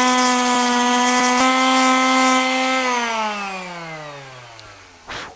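DeWalt palm sander with 60-grit paper running steadily against a 3D-printed PLA Plus plate. About three seconds in it is switched off, and its motor hum falls in pitch and fades as it winds down. A brief soft knock comes near the end.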